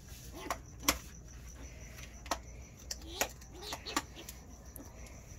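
Skunks eating dry kibble from a bowl: irregular sharp crunches and smacks, about half a dozen spread unevenly. Crickets chirp steadily and faintly throughout.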